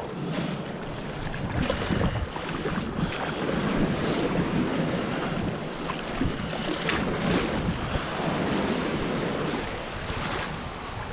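Small sea waves washing and splashing around a person's legs in shallow surf, with wind buffeting the microphone.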